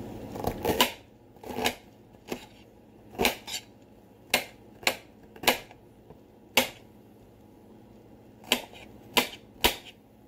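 Kitchen knife chopping broccoli against a hard cutting surface: about a dozen sharp, irregular chops, with a pause of about two seconds before a last quick group of three.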